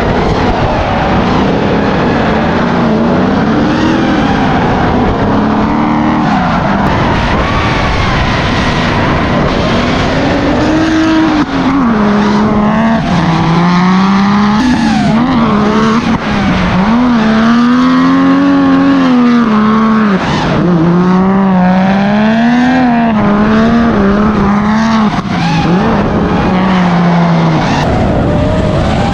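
Drift car engine revving up and down again and again, its pitch swinging between higher and lower notes, with tyre noise underneath.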